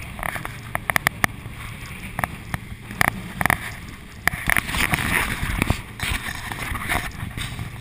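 Motorboat running at speed over light chop: a steady low rush of engine, water and wind, broken by repeated sharp slaps and splashes as the bow meets the waves.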